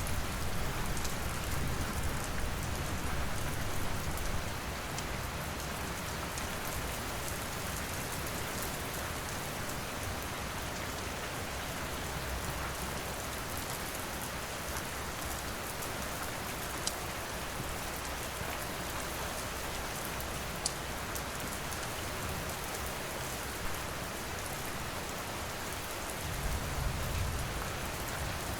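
Steady rain falling and pattering, with a few sharp pops from a crackling fire. A low rumble is stronger in the first few seconds and again near the end.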